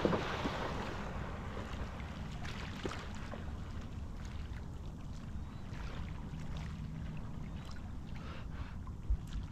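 Outdoor waterside ambience: a steady low rumble of wind and water, with a short splash-like burst at the very start and a few faint clicks.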